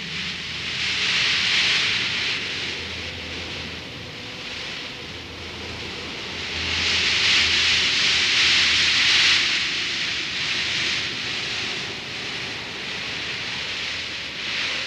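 Desert wind blowing hard and driving sand, a steady hiss that swells in gusts, with one surge about a second in and a longer, stronger one from about seven to nine seconds in.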